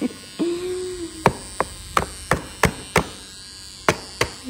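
About eight sharp taps, mostly about three a second with a short pause near the end, over the faint steady whine of electric hair clippers. A short hummed tone comes just before the taps begin.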